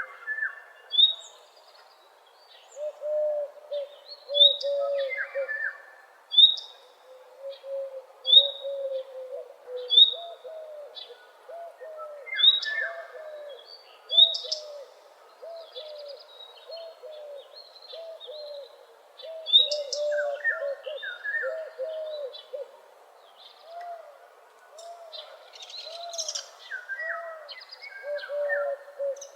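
Several birds singing together in a woodland dawn chorus: a low call of short, rapidly repeated notes runs on steadily under a higher short note repeated about every two seconds, with other chirps and phrases in between.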